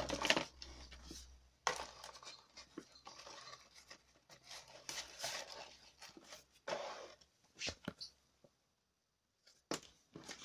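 Plastic wrapping and cardboard packaging crinkling and rustling as they are handled, in irregular bursts with a few sharp clicks. The sound pauses briefly near the end, then picks up again.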